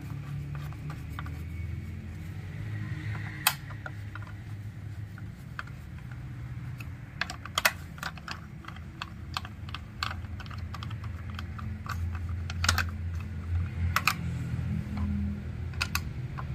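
Irregular small clicks and taps of a screwdriver against a chainsaw's plastic engine housing, a few seconds apart and in short clusters, over a low steady hum.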